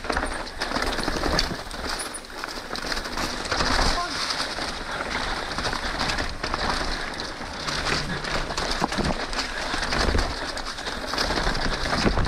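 Trek Slash 9.8 mountain bike running down a dirt trail: tyres rolling over dirt and leaves with a steady rush of wind on the camera mic, and repeated knocks and rattles from the bike over bumps.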